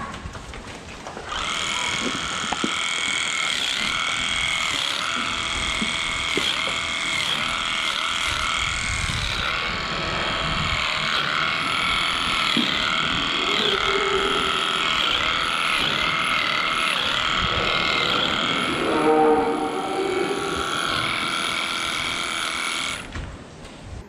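Electric cattle clippers running with a steady high whine while trimming a cow's tail switch, the pitch wobbling slightly as the blades work through the hair. They switch on about a second in and cut off near the end, with a brief lower sound about 19 seconds in.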